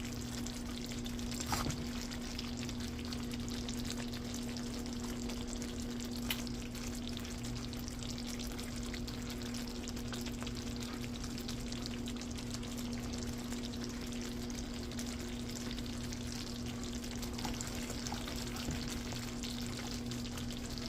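Food sizzling and crackling steadily in a cooking pan, over a steady low hum. Two sharp clicks stand out, one about a second and a half in and another about six seconds in.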